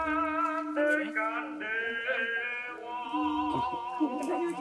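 Music for a Javanese dance: a singing voice holding long, wavering notes over a steady low held tone.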